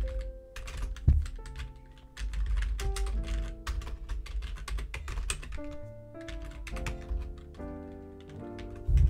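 Computer keyboard typing: quick runs of keystroke clicks as terminal commands are entered, over background music with held notes. Two heavier low thumps, about a second in and near the end.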